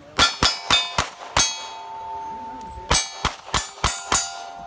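Revolver fire on steel plate targets: two quick strings of five shots, with a pause of about a second and a half between them. Each hit sets a steel plate clanging, and the plates are left ringing.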